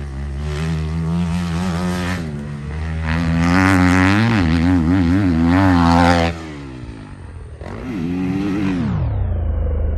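Motocross bike engines revving on a track, the pitch rising and falling repeatedly with the throttle. The sound drops away a little after six seconds in, then a bike revs up and back down once near the end.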